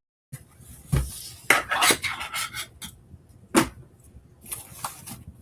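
Packaging being opened and handled by hand: scraping and rustling with several sharp knocks, the loudest about a second in and again past the halfway mark.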